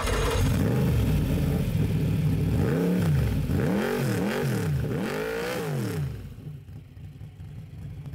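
Car engine revved about four times in quick succession, its pitch rising and falling with each blip, then dropping back to a quieter steady idle.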